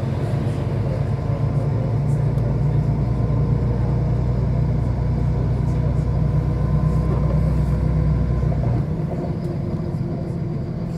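City bus driving, heard from inside the passenger cabin: a steady low drone with road noise, which eases off about nine seconds in.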